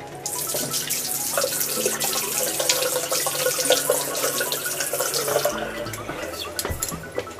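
Water running from a tap into a sink, splashing steadily, then shut off about five and a half seconds in. Background music with low, held notes plays underneath.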